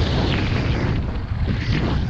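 Wind buffeting a GoPro's microphone during a fast ski descent, a steady low rumble, with skis hissing and scraping over groomed snow.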